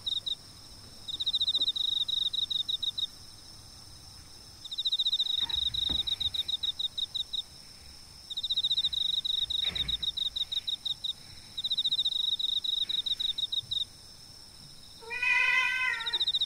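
A cat gives one falling meow near the end. Under it, a high, rapid trilling chirp comes in regular bursts of about two seconds, with two soft low thumps in between.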